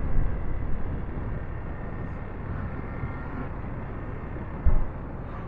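Steady low rumble of a motorcycle on the move, wind and road noise on the microphone, with a brief thump about four and a half seconds in.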